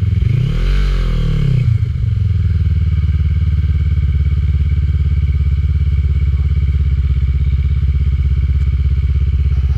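ATV engine revved once, its pitch rising and falling back over about a second and a half, then idling steadily with an even, rapid pulse.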